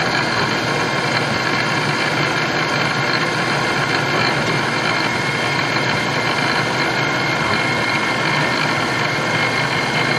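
CNC knee mill with its spindle running while the cutter engraves letters into a graphite block: a steady machine whir carrying several steady high tones.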